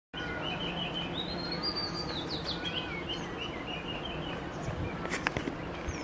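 Birds calling: a run of short, chirping calls, some rising in pitch, through the first few seconds, then a couple of sharp clicks about five seconds in.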